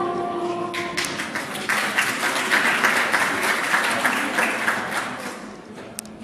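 Audience applauding, starting about a second in and fading toward the end, as the last held note of the performance music dies away.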